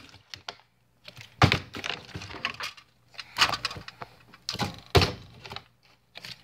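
Partly filled plastic water bottle being flipped over and over, hitting a hard surface with a thud and a short clattering tumble every second or two.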